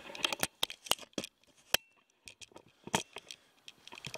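Bicycle rolling down a wet paved road, giving off scattered, irregular sharp clicks and light rattles.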